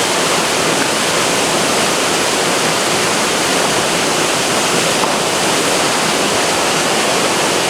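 Waterfall rushing, a steady, even noise with no breaks.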